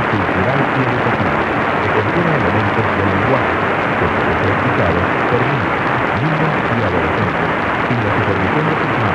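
Long-distance AM radio reception of a 1490 kHz broadcast: a steady hiss of static and noise, with a voice talking faintly underneath, too buried to make out.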